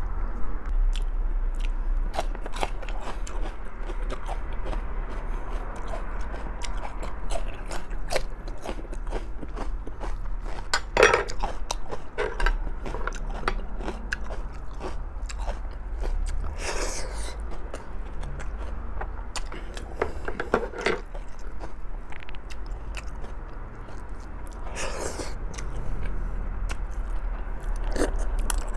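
Close-miked chewing and biting on stewed pork trotters: a steady run of small wet mouth clicks, with several louder bites spread through.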